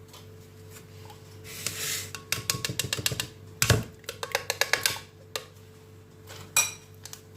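A spoon scraping and tapping yogurt out of its cup into a blender jar: runs of quick clicks, with one heavier knock about halfway through.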